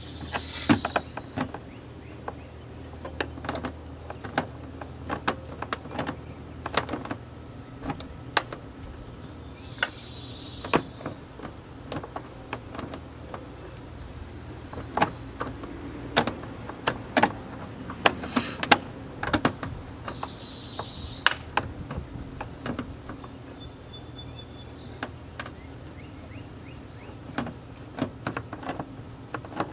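Irregular clicks, taps and knocks of hand tools and door parts being handled while a car door is reassembled. A short falling chirp comes about every ten seconds.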